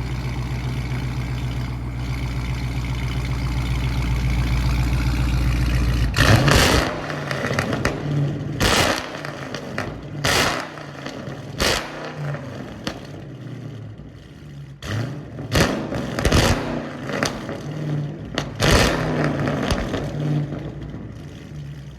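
Shop work under a car on a lift: a steady motor hum that stops abruptly about six seconds in, then a string of short, sharp bursts of clatter and scraping from tools on the exhaust, about ten of them.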